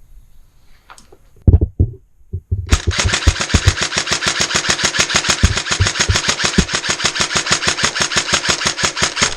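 Airsoft electric gun firing. A few sharp, loud shots come about a second and a half in, then a long full-auto burst: a rapid, even rattle of shots lasting about six and a half seconds that cuts off suddenly.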